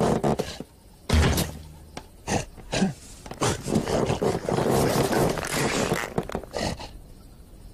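Cartoon sound effects with a cartoon lion's grunts and growls: a heavy thump about a second in, then a run of short knocks and scuffling, dying away near the end.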